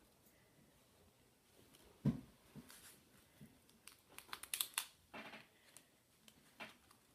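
Handling of small handmade paper pieces on a wooden tabletop: a soft thump about two seconds in as a piece is set down, then a run of light paper clicks and rustles as a folded paper leaflet is opened out.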